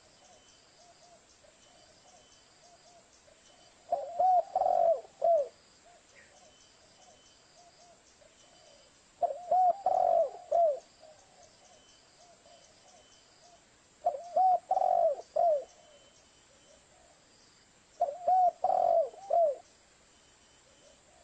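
Spotted dove (tekukur) song used as a lure call: a phrase of three or four coo notes repeated four times, about every four to five seconds, with softer cooing in between.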